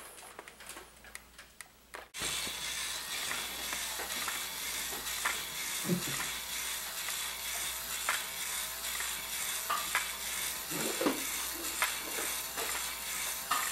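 Steady hiss of room tone in a small room, starting abruptly about two seconds in, with scattered faint ticks and a couple of soft low knocks.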